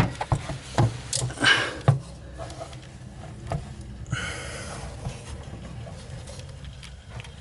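Hands handling wiring behind a vehicle dash: scattered small clicks and knocks in the first two seconds, and two short hissing rushes of noise, one about a second in and one about four seconds in, over a steady low hum.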